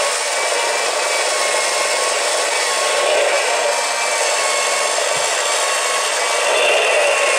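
Motorized 1:4-scale Haynes Porsche flat-six plastic model engine running steadily: its small electric motor drives the plastic pistons, valves and gears with an even mechanical whir and a faint hum underneath.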